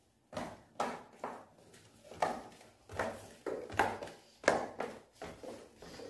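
Footsteps in flip-flops on tiled stairs: a quick, uneven run of about a dozen short slapping steps, roughly two a second.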